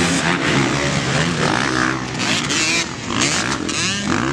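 A pack of motocross dirt bikes racing just after the start, several engines revving up and down over one another.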